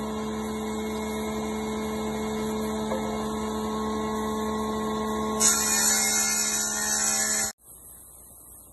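Combination woodworking machine with a surface planer running with a steady motor hum. About five and a half seconds in, a plank is fed across the planer's cutter head, adding a louder, hissing cutting noise for about two seconds. The sound then cuts off abruptly to a faint background.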